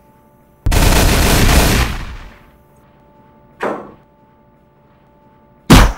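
Gunfire. A long, loud blast begins about half a second in and dies away over a second and a half. A single short shot follows near the middle, and the loudest, sharpest shot comes near the end.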